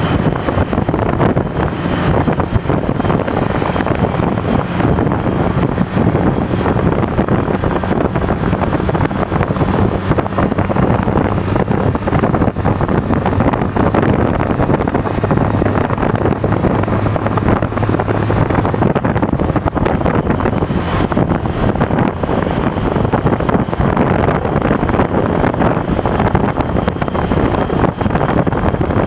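Motorcycle taxi (motocarro) engine running steadily as it drives along a paved street, with road noise and wind buffeting the microphone in the open passenger cab.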